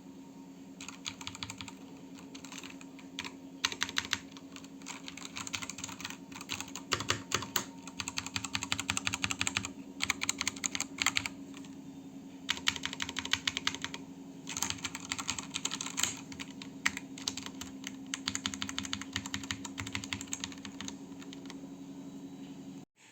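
Typing on an Aula S100 Pro mechanical keyboard with brown switches: fast runs of key clicks lasting a few seconds each, broken by short pauses, over a steady low hum.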